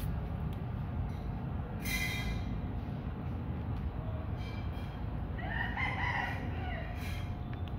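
Two animal calls, a short one about two seconds in and a longer, wavering one about five seconds in, over a steady low rumble.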